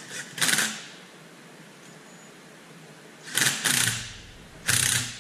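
Tool working the accessory belt tensioner adjuster on an OM617 diesel engine as the belt is tightened: four short bursts, the middle two close together.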